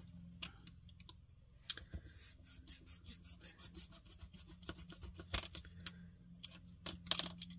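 Snap-off craft knife blade cutting through a paper drinking straw as the straw is turned against it: a quick run of small clicks and scratches, with a few sharper snaps later on.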